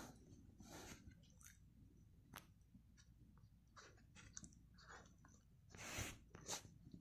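A dog nosing and mouthing at a footlong sandwich roll: faint scattered mouth clicks and soft rustles, the loudest about six seconds in.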